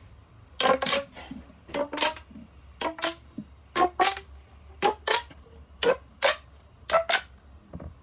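Plastic pop tube fidget toy being stretched and squeezed, its ridged sections snapping in and out with sharp pops, mostly in quick pairs, about once a second.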